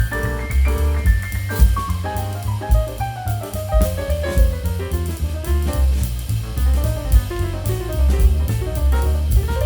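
Jazz-style background music: a drum kit keeping a steady beat with cymbals, under a melodic line that steps up and down.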